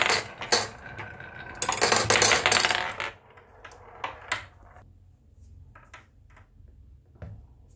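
Marbles clattering down a wooden wave-slope marble run block: a dense rattle of quick clicks, loudest about two to three seconds in, that stops suddenly. After that come a few scattered single clicks as marbles knock against the hard surface.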